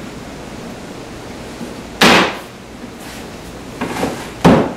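Wooden knocks as a cabinet face frame is pressed onto the cabinet box: one sharp knock about two seconds in, a few lighter knocks, then another sharp knock near the end.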